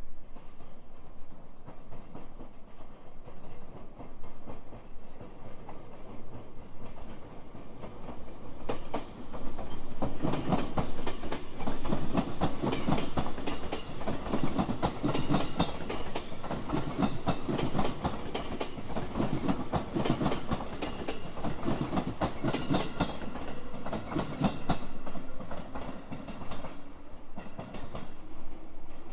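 Electric train passing close at speed, its wheels clattering over the rail joints in a rhythm that repeats about every two and a half seconds. The clatter starts about a third of the way in and fades near the end, where a faint rising hum is left.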